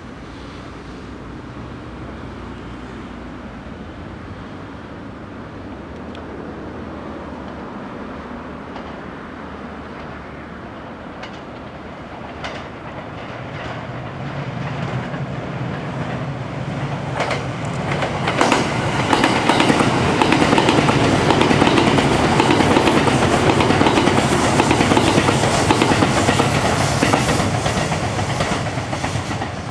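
A 285-series Sunrise Izumo electric sleeper train approaches with a growing low rumble, then passes close by. Its wheels clatter over the rail joints, loudest in the second half, and the sound fades near the end.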